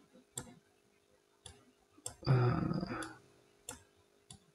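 Computer mouse clicking, about five single sharp clicks spread out, as blocks are picked up and dropped in the Scratch editor. A brief, louder low sound comes about halfway through.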